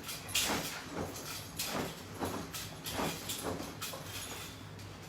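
Rhythmic swishing, about two short swishes a second, from someone doing sit-ups with resistance straps: breathing and strap or clothing rustle. A low steady hum runs underneath.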